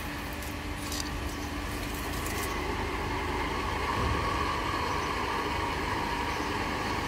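Small electric water pump running with a steady hum and a fixed motor tone, growing slightly louder over the first few seconds, then holding steady.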